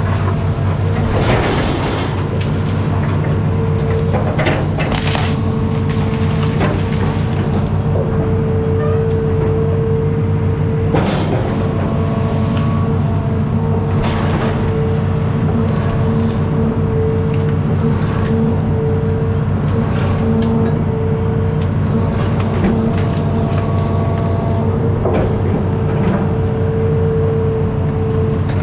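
Hitachi ZX210 amphibious excavator's diesel engine running steadily, with a steady whine over it and several sharp cracks or knocks scattered through.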